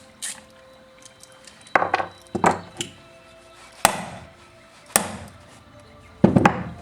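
A series of sharp knocks and clinks, about seven in uneven succession, from tools and chainsaw parts being handled and tapped during bench repair. The heaviest knock comes near the end.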